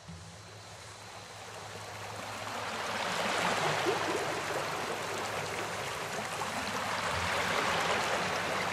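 Steady rushing noise like running water from a stream, fading in over the first three seconds and then holding, with a faint low hum beneath.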